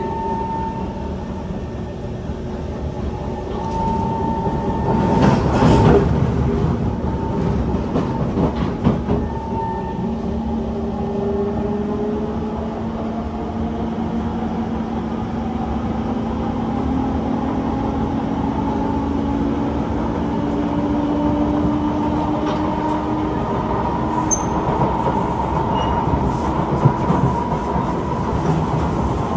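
Kawasaki C151 metro train running between stations, heard from inside the carriage: a steady rumble of wheels on the track, with a low traction-motor whine that climbs slowly in pitch. About five seconds in, a louder burst of rail noise.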